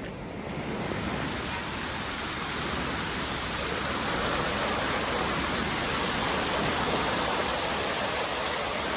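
Floodwater rushing steadily, a dense even wash of water sound that grows a little louder over the first second or so.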